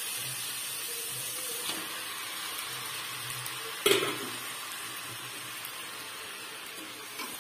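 Onion-tomato masala sizzling in a kadai on the stove: a steady hiss, with one sharp knock about four seconds in.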